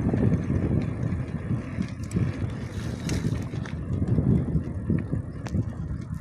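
Wind buffeting the microphone: a low, uneven rushing noise that swells and drops, with a few faint ticks.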